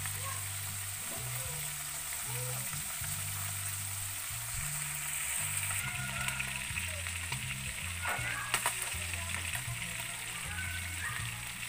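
Lizardfish frying in oil in a cast-iron skillet over a wood fire: a steady sizzle, with a few brief pops near two-thirds of the way through.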